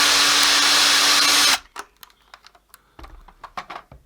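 Small electric drill running steadily while drilling out the rivet of an old Hornby tension-lock coupling, then switched off about a second and a half in. A few light clicks and taps follow.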